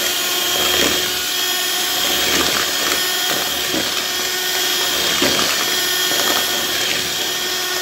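Electric hand mixer running steadily with a motor whine, its beaters whisking eggs with sugar and vanilla essence in a bowl until they foam for a sponge cake batter.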